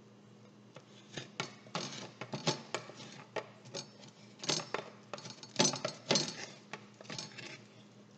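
A spoon scraping and knocking around inside a young coconut shell in short, irregular strokes, scooping out the last thin, soft meat. The strokes get louder around the middle.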